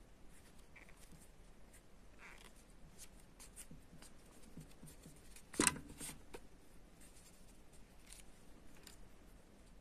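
Faint scratching and rustling of hands sewing a crocheted toy, with yarn drawn through the stitches by a yarn needle. One sharp click a little past halfway.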